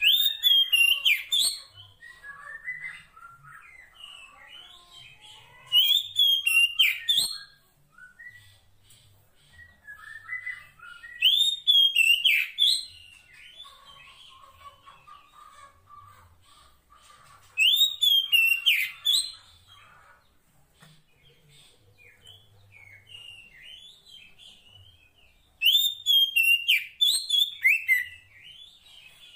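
Female Oriental magpie-robin (kacer poci) calling a male: five loud bursts of high, rising-and-falling notes about every six seconds, with softer chirping in between.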